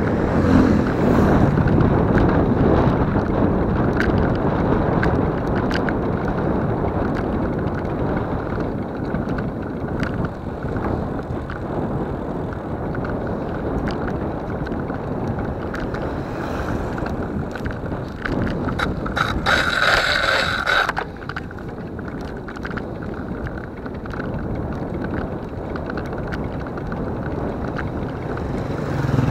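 Wind buffeting the microphone of a camera riding along a road, mixed with road noise from the moving vehicle. About twenty seconds in, a brief higher-pitched sound of a couple of seconds cuts in over it.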